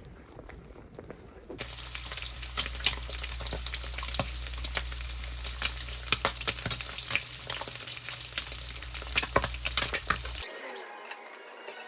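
Food frying in a pan, sizzling with dense crackles and pops over a steady low hum; it starts about a second and a half in and cuts off abruptly near the end.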